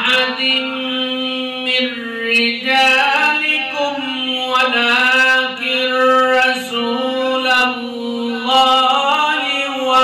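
A man reciting the Quran in the melodic tajweed style, drawing out long, ornamented held notes in several phrases.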